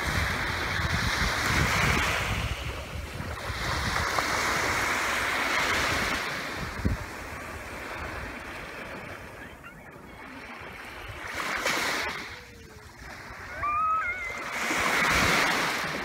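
Small sea waves on a sandy beach, each ripple washing in with a hiss and fading as it draws back, swelling and receding several times.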